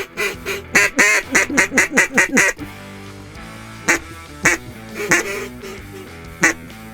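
Mallard duck call blown in a fast run of hen quacks that drop in pitch, followed by a few single, spaced-out quacks.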